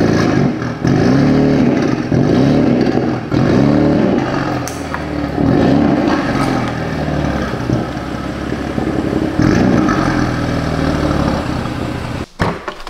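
BMW M4's S55 twin-turbo straight-six revved in a series of throttle blips, the engine note rising and falling with each, about once a second at first and then more spaced out.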